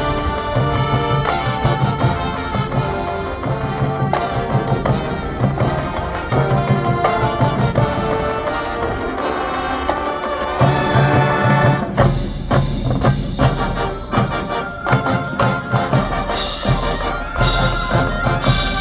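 Marching band playing: brass sounding held chords and melody over the battery and front-ensemble percussion, with sharp percussion hits becoming prominent about twelve seconds in.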